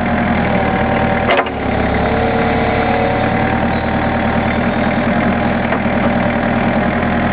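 Backhoe engine running steadily at idle, with a single sharp clack about a second and a half in.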